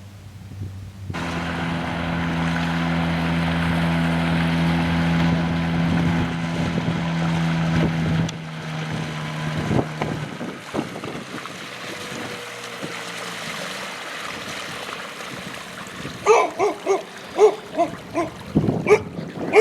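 An engine runs steadily, then stops about eight seconds in. From about sixteen seconds a dog barks repeatedly, two or three barks a second.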